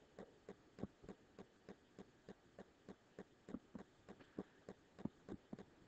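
Faint light taps and clicks of a stylus writing on a pen tablet, roughly three or four a second, over near-silent room tone.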